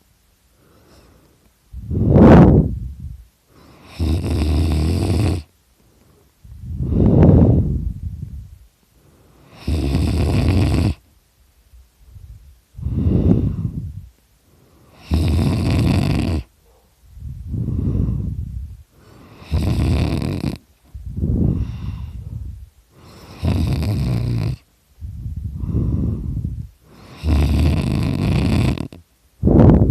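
A person snoring really loud in sleep. Low snores that swell and fade alternate with flatter, breathier rushes of air, about one every two to three seconds.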